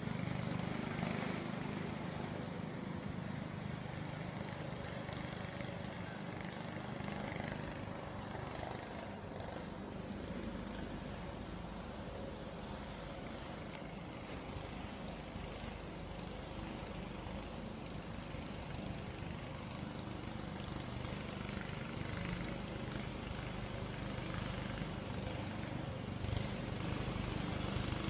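A youth mini 120 snowmobile engine running in a steady drone as the sled rides through the woods. It fades a little in the middle and grows louder again near the end as the sled comes back closer.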